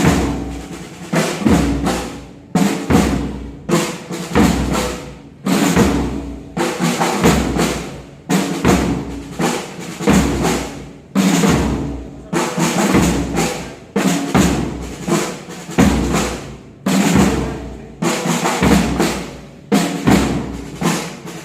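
French bulldog snoring loudly: rapid, rattling snorts about once a second, each starting abruptly and fading, at an uneven pace.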